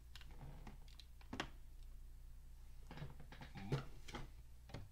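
A few faint, sharp clicks and taps at irregular intervals over a low steady hum.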